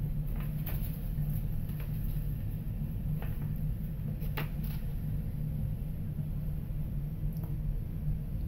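Steady low hum of room noise, with a few faint short rustles and clicks as paper is handled close to a hand-held phone.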